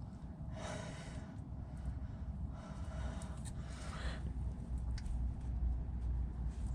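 A person breathing out hard three times, in short breathy bursts, while straining at the work, over a low rumble of handling noise with a few faint clicks.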